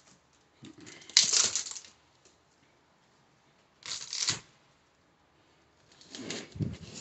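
Handling noise: short clattering, rustling bursts as plastic wire spools are touched and moved. The loudest comes about a second in, a brief one around four seconds in, and more near the end.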